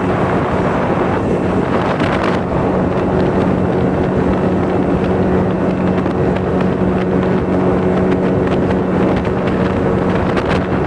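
Motorboat engine running steadily at cruising speed with a constant hum, under heavy wind noise on the microphone.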